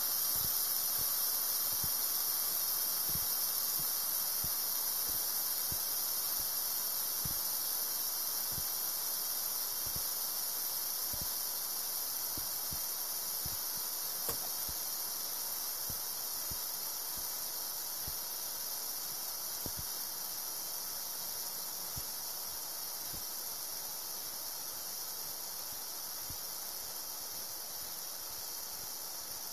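Air hissing steadily out of an Intex Atlantic 100 vinyl inflatable boat as it deflates, the hiss slowly growing quieter.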